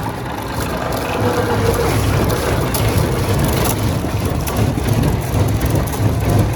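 Heavy sawmill machinery running steadily: a loud low drone under an even noisy hiss.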